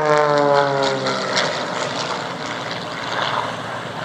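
Propeller aircraft flying past: its engine note drops in pitch over the first second or so as it passes, then gives way to a rushing noise that slowly fades as it moves away.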